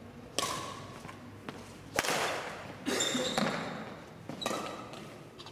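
Badminton rally on a wooden court: several sharp racket strikes on the shuttlecock, with thudding footsteps and short squeaks of shoes on the floor, echoing in the hall.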